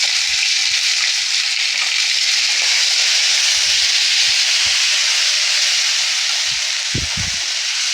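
Ginger–green chilli paste and panch phoron sizzling in hot mustard oil: a steady, loud frying hiss, with a few soft low knocks about seven seconds in.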